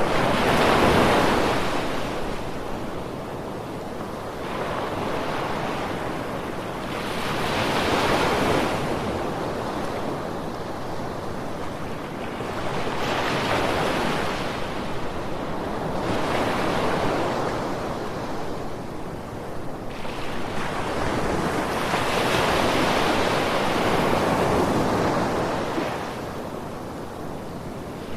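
Ocean surf: waves breaking and washing in, the rush of water swelling and fading every few seconds, about five surges in all.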